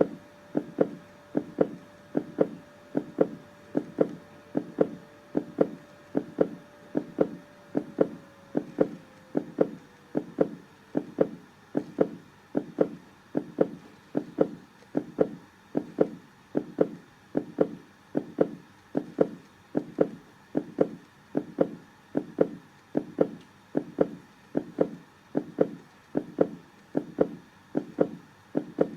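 Human heartbeat beating in a steady, even rhythm of dull, low thumps.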